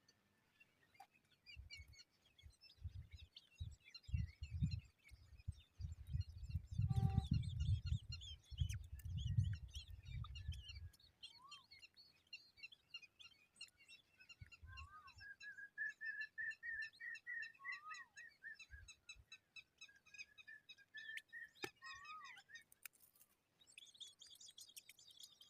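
Small birds chirping: rapid high chirps throughout, a few short falling calls, and a longer warbling run in the second half. Low thumping and rumbling in the first ten seconds is loudest about a third of the way in.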